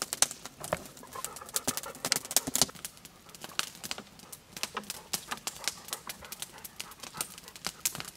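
Wood campfire crackling with many sharp, irregular pops, while water is poured from a plastic bottle over a mushroom cap during the first few seconds.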